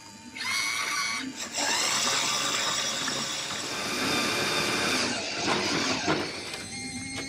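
LEGO roller coaster model running: a loud, noisy mechanical rattle of the plastic cars and mechanism. It starts just after the beginning, swells about a second and a half in, and dies away near the end.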